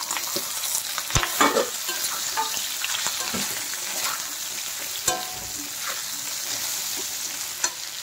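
Fried diced vegetables sizzling in hot mustard oil in a pan, stirred with a metal spatula that scrapes and clicks against the pan several times over a steady sizzle.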